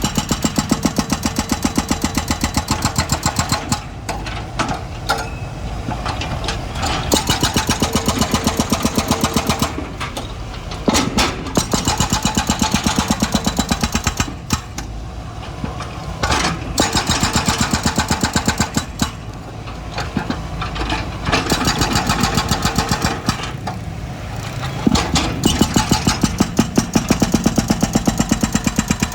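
Excavator's diesel engine running with a rapid, even pulsing that grows louder in spells of a few seconds and eases between them as the machine works.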